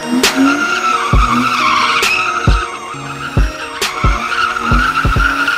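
Rear tyres of an M52-swapped BMW E36 screeching steadily as the car slides through a smoky burnout. A music track with a thumping bass beat plays over it.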